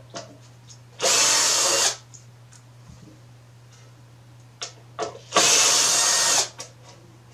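Cordless drill-driver spinning out the screws of a blower motor's mounting bracket, in two runs of about a second each, one about a second in and one just past five seconds, with a few small clicks of handling between.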